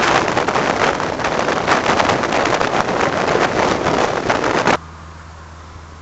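Loud wind rush and buffeting on the microphone of a Vespa GTS 250ie scooter riding at speed, with its engine running under it. The noise cuts off abruptly just before the end, leaving a quiet, steady low hum.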